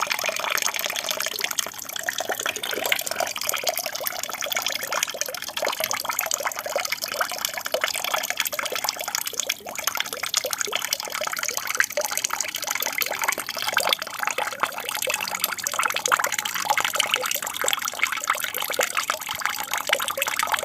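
Water splashing and trickling steadily down a small aquarium waterfall.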